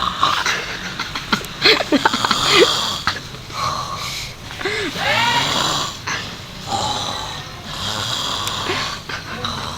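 A sleeping person snoring loudly, a series of rough snores the onlooker likens to a pig's, with high squeaky wheezes gliding up and down between some of the breaths.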